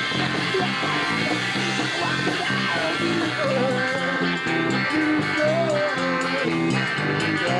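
Live rock band playing loudly, electric guitars to the fore, with a wavering melody line coming in about three seconds in.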